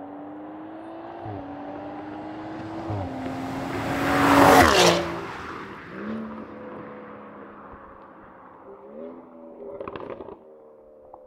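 BMW X3 M40i's turbocharged inline-six, breathing through a valved sport exhaust and free-flow downpipes, accelerating with two upshifts as the SUV drives past. The sound swells to its loudest in the middle, the pitch drops as it passes, then it fades, with a brief crackle near the end.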